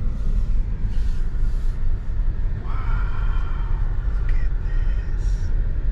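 Steady low rumble of a car driving, heard from inside the cabin. About two and a half seconds in, a faint steady tone joins it for roughly two seconds.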